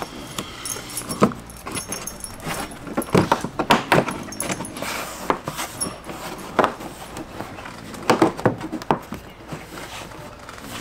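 Plastic fender flare on a Toyota RAV4 being pressed back onto the body, its retaining clips snapping into place: a string of sharp, irregular plastic clicks and knocks, a dozen or so, bunched in the middle and again near the end.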